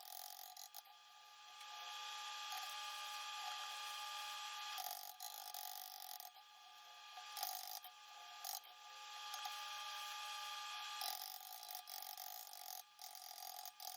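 Welder laying weld to build up the broken-off chunk of a post-hole auger tooth: a faint, steady hiss and buzz in runs of a few seconds, stopping briefly several times between beads.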